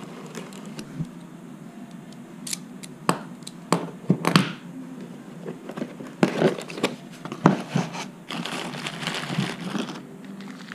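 A small cardboard box being slit open with a utility knife and unpacked: scattered clicks and short scrapes, then plastic wrapping crinkling for a couple of seconds near the end as the bagged four-jaw lathe chuck is lifted out.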